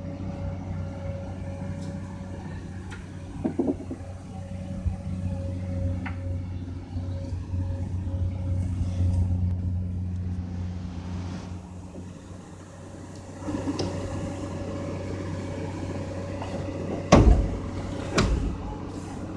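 Komatsu PC200-8MO excavator's diesel engine running steadily, its note swelling and easing as the machine swings a concrete slab hung on a chain. A few sharp knocks, the loudest two close together near the end.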